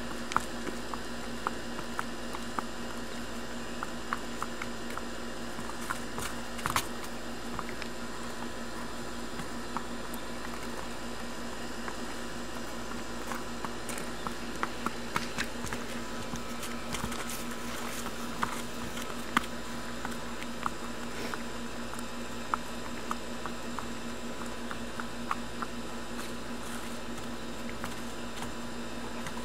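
A young horse's hooves clicking lightly and irregularly on a concrete walk, over a steady low hum.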